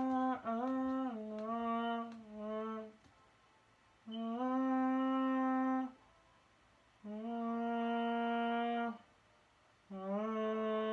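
A person humming a tune: a short run of notes stepping down, then three long held notes with pauses of about a second between them.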